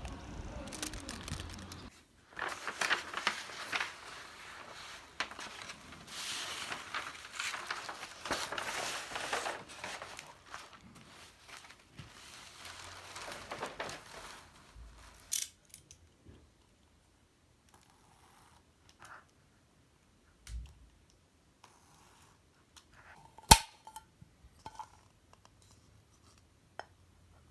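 Close hand-craft work noises: about a dozen seconds of continuous rustling and scraping, then much quieter scattered light clicks, with one sharp tap a little over twenty seconds in.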